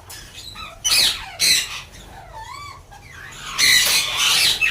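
Lovebirds squawking: shrill, harsh calls about one and a half seconds in and again in a longer run near the end, with a few thin warbling whistles between.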